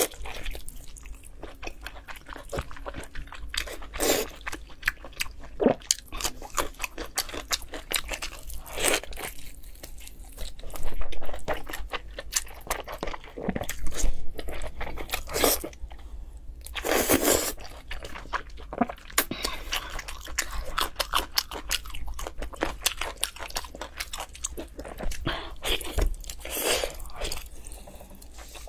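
Close-up biting and chewing of braised donkey intestine, a run of short mouth clicks broken by a few louder bites.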